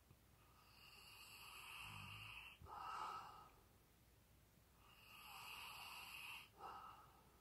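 A sleeping dog snoring quietly, two slow breaths about four seconds apart. Each is a long whistly wheeze that builds up, followed by a shorter, louder puff.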